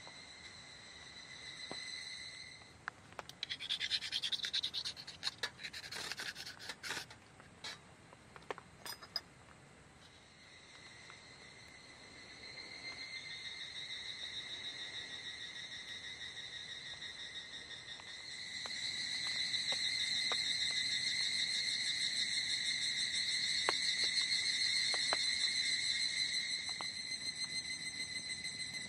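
A steady chorus of chirring insects that grows louder about two-thirds of the way through. Scratchy rubbing and clicking sounds come for several seconds near the start, and a wood campfire gives occasional sharp crackles later on.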